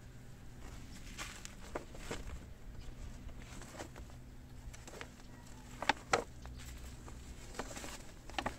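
Scattered light clicks and taps, two sharper ones about six seconds in and a few more near the end, over a faint steady low hum.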